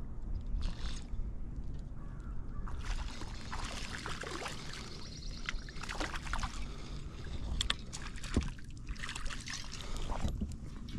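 A hooked crappie splashing and thrashing at the water surface as it is reeled toward the boat, in irregular bursts from about two and a half seconds in, over a steady low rumble.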